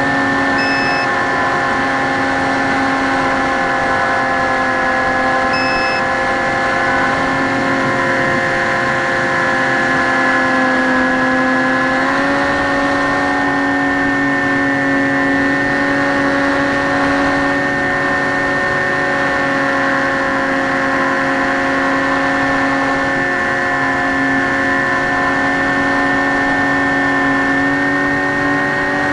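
Brushless electric motor and propeller of a Skywalker X5 flying wing in flight, a steady multi-pitched whine over rushing air. The pitch sags slightly, then steps up about twelve seconds in as the motor speeds up. Two short high beeps sound near the start, about five seconds apart.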